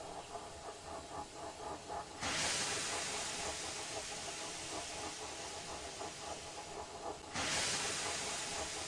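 Steam locomotive hissing steam. A strong, even hiss starts suddenly about two seconds in and grows louder again near the end, after a faint rhythmic beat at the start.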